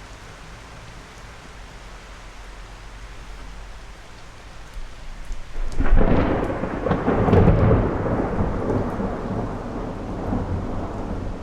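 Steady rain, then about six seconds in a thunderclap breaks in with a sudden crack and a rolling rumble that slowly fades over the rain.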